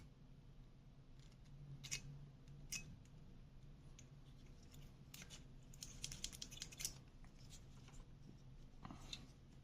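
Faint, short metallic clicks and scrapes of steel feeler-gauge blades being handled and slid into the gap beside a bayan reed on its reed plate. They come in a few small clusters, the busiest about halfway through, over a quiet room with a low hum.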